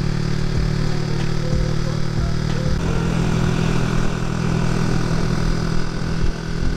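Honda Winner X 150's single-cylinder engine running at a steady pitch, its note shifting slightly about three seconds in.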